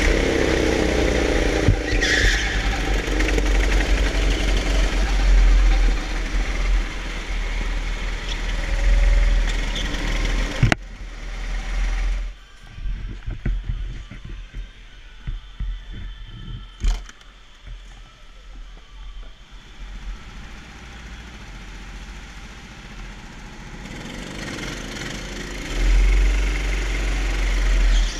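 Hire kart's Honda four-stroke engine running hard, with heavy low rumble and vibration on the onboard camera. About eleven seconds in the engine sound cuts off abruptly, leaving a much quieter stretch with scattered knocks and one sharp click, before engine noise builds again near the end.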